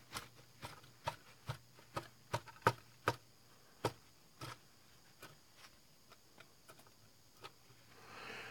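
Faint, irregular light clicks and taps as a plastic HO-scale model flat car is handled and wiped with a paper towel on a hardboard work surface, with a soft paper rustle near the end.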